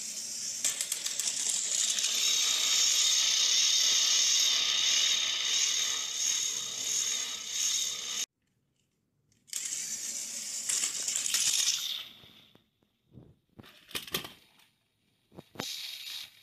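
Battery-powered motors and gears of two Thomas & Friends toy trains, BoCo and Sir Handel, whirring in a steady high whine as they push against each other head-on. The whine stops suddenly about eight seconds in and comes back a second later for a couple of seconds. It then gives way to a few short clicks and knocks as a train tips off the track.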